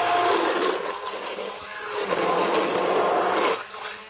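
Immersion blender running in a pot of tomato coconut soup, pureeing it; the motor drops away briefly near the end.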